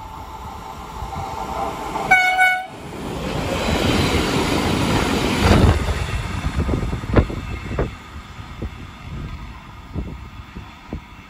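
Freight train led by an E494 electric locomotive passing at speed. It gives one short horn blast about two seconds in. The loud rush of the locomotive going by follows, then the tank wagons' wheels clicking over the rail joints as the sound fades.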